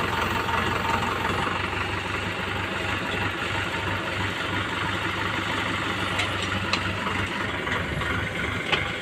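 Diesel engine of an Indo Power 14-tonne hydra crane running steadily while the crane lifts a cone crusher's top assembly, with a few sharp clicks about two-thirds of the way through and one near the end.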